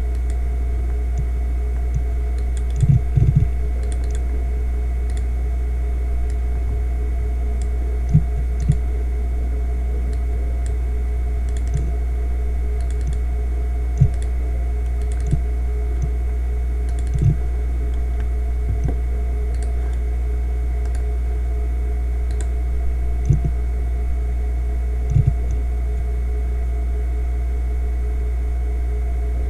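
Fujitsu MEA3320BT 3.5-inch SATA hard drive spinning at 3,600 rpm with a steady low hum and faint whine, its heads seeking during file access and transfer. The seeks come as irregular short clicks and ticks, singly or in quick pairs, a few seconds apart.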